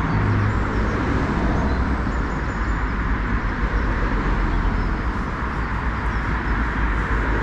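Steady rush of road traffic with a low rumble underneath.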